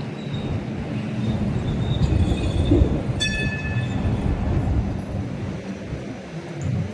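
Hong Kong light rail vehicle running slowly through the depot: a steady low rumble, with a faint wavering high squeal over the first couple of seconds and a short shrill tone about three seconds in.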